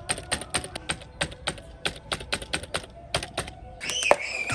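Computer keyboard keys being typed on in a quick run of clicks, about four or five a second. A short swooping tone sounds near the end.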